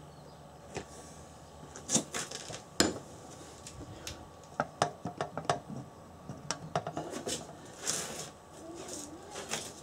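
Metal tool parts and a motorcycle alternator rotor clinking and knocking as they are handled and a steel rod is stood on a metal block: a scatter of sharp separate clanks, the loudest about two and three seconds in, then quicker runs of lighter clicks.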